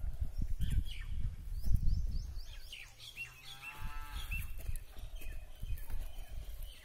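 A cow moos once, a call about a second long in the middle, with a slight dip and rise in pitch. Before it, a low buffeting rumble on the microphone is the loudest sound, with a few faint high chirps.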